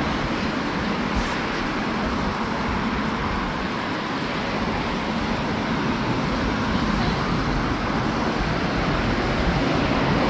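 Steady city road traffic noise, a continuous wash of passing vehicles.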